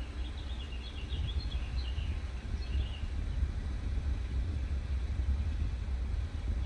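Small birds chirping in quick runs during the first half, over a steady low rumble.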